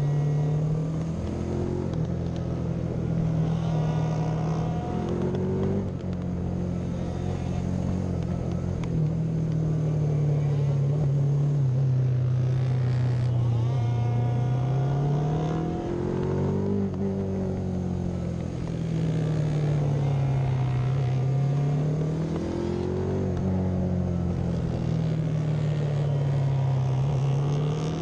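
Classic racing motorcycle engine of up to 500cc, heard on board at race pace: the revs drop and climb again several times as the bike rolls off and accelerates through the corners.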